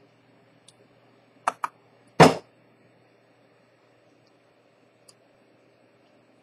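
Small tool clicks and a knock on a watchmaker's bench as tweezers are picked up and used: two quick clicks about a second and a half in, a louder knock just after, then one faint tick later, over a faint steady hum.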